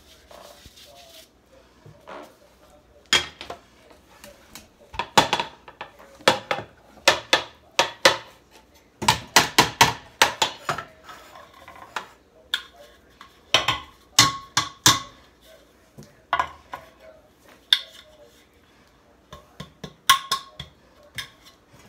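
A metal fine-mesh strainer full of flour being tapped and knocked over metal baking pans, with clatter of the tins, to dust flour into greased muffin cups. The taps come in uneven clusters, with a fast run of several taps a second about halfway through.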